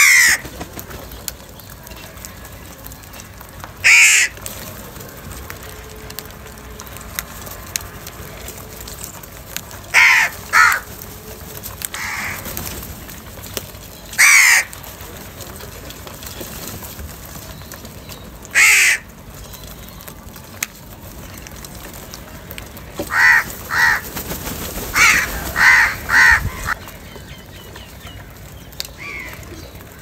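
House crows cawing: single harsh caws every few seconds, then a quicker run of five or six caws late on.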